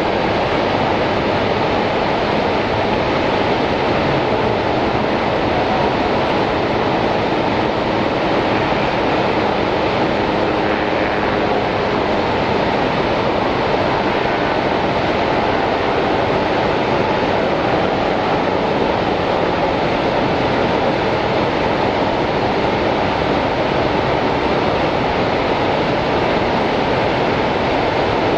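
Niagara's American Falls: a huge volume of water pouring over the falls, heard as a loud, steady, unbroken rush of white noise.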